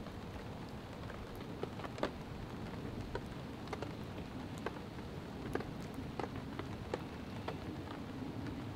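Rain falling on a tarp overhead: a steady hiss with scattered single drops landing at irregular intervals.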